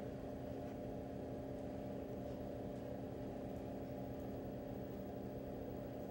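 A steady low hum with a faint hiss: room tone, with no other sound standing out.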